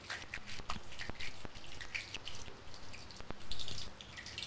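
Panch phoron spices and a dried red chilli crackling in hot mustard oil in a steel wok, with scattered, irregular sharp pops and ticks as the whole spices fry for the tempering, stirred with a spatula.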